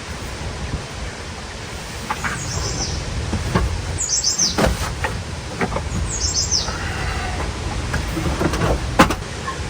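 Birds chirping outdoors in three short bursts of quick, falling notes, over a steady low rumble, with several sharp knocks and clicks; the loudest knock comes near the end.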